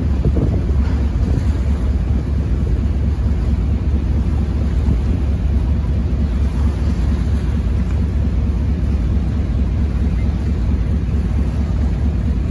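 Steady low rumble aboard a harbour ferry under way, with wind buffeting the microphone.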